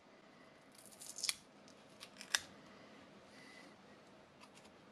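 Sharp snip-like clicks from handling an opened lithium-ion battery pack of 18650 cells with nickel strip connectors. There is a cluster of clicks about a second in and a single sharper one a little after two seconds, over faint rustling.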